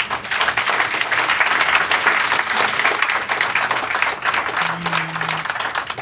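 Audience applauding steadily, a dense patter of many hands clapping.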